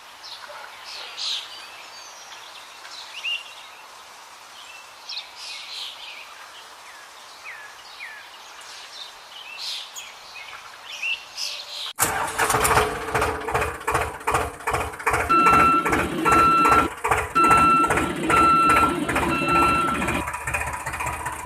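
Birds chirping faintly outdoors. About halfway through it cuts suddenly to a DIY model tractor's small electric motor and gears running loudly with a rhythmic clatter of about three ticks a second. From about three seconds after the cut, a repeating electronic beep comes in about once a second, like a reversing beeper.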